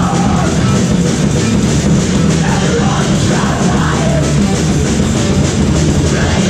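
Metal band playing live at full volume in a small room: distorted electric guitars, bass and a drum kit with cymbals. Vocals come in over the band through the middle.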